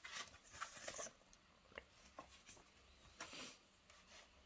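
Faint rustling of paper as a picture book's page is turned, with a few soft clicks of handling, in a quiet room.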